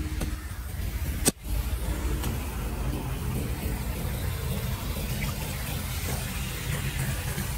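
Low, steady rumble of a motorbike running, with floodwater flowing. A single sharp click about a second in.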